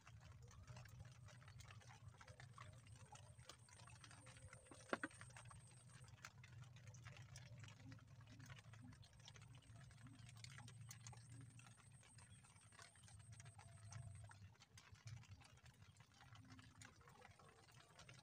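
Near silence with light rain pattering faintly in scattered small ticks, over a faint steady high whine and a low hum. A single sharp click comes about five seconds in.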